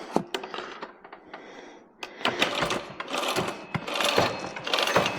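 Hand tools and metal parts clicking and clattering during work on a mini bike's rear brake and chain. After a few sharp clicks and a quieter pause, a quick run of clattering strokes starts about two seconds in.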